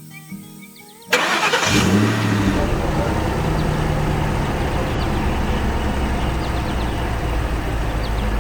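A cartoon engine sound effect starts abruptly about a second in and keeps running steadily, with a heavy low rumble under a noisy mid-range.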